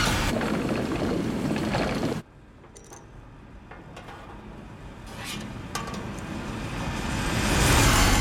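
Mechanical sound effects: a loud rushing, whirling machine noise cuts off suddenly about two seconds in. After it come a quiet stretch with a few small metallic clinks and ticks, then mechanical noise building up again toward the end.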